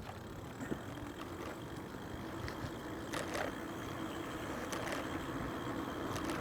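1000W electric bike cruising: a steady low hum from its electric motor, getting slightly louder, over rumbling tyre and wind noise, with a few light clicks.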